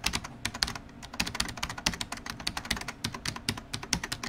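Rapid typing on a keyboard: a quick, irregular run of sharp key clicks, several a second.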